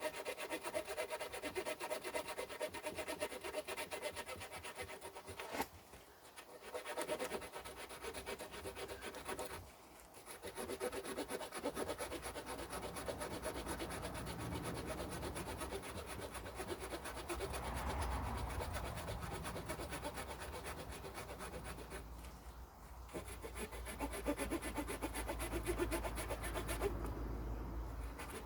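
Victorinox Farmer X Alox pocketknife's small saw blade cutting through a fresh branch of mid-hard wood about 4 cm thick with rapid back-and-forth strokes. It stops briefly a few times.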